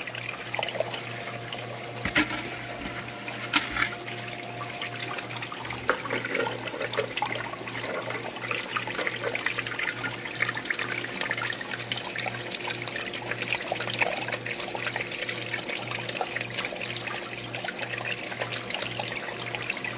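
Water rushing down a vibrating sluice over hex-cell riffle mats, with a low machine hum pulsing about twice a second underneath. Two sharp knocks come in the first few seconds.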